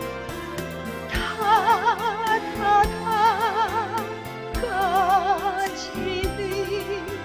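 Music: a slow ballad melody of long, wavering held notes over a bass line, with a low thud every second or two.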